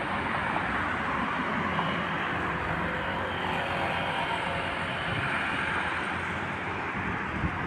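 Road traffic: cars and motorcycles driving past on a wide multi-lane road, a steady mix of tyre and engine noise.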